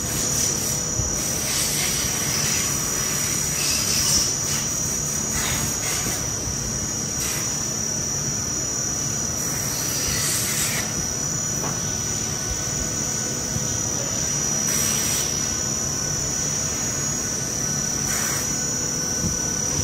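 Steady factory-floor machine noise: a constant high-pitched whine over a low rumble, with a few faint clicks scattered through it.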